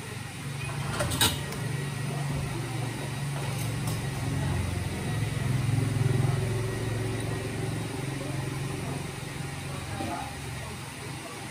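Low engine rumble of a passing road vehicle, swelling to its loudest around the middle and fading again. A single sharp metallic click comes about a second in.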